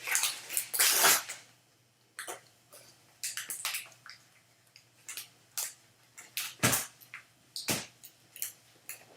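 Foil trading-card pack wrapper crinkling and tearing open, loudest in the first second. Then scattered sharp crackles and clicks as the wrapper and cards are handled.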